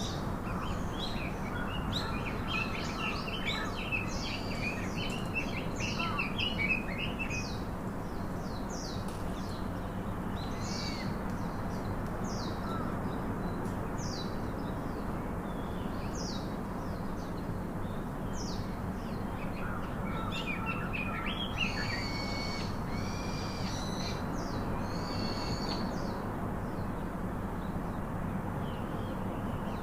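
Birds chirping and calling in many short high notes, busiest in the first several seconds and again about two-thirds of the way through, over a steady low background noise.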